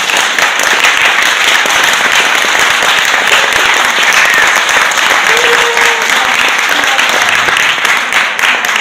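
Audience applauding, many hands clapping steadily, dying away at the very end.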